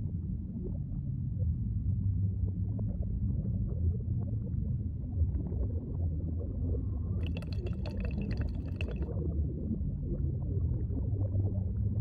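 Underwater sound of scuba diving: a steady low rumble and gurgle of water and exhaled bubbles. About seven seconds in, a higher hiss with a whistle lasts about two seconds.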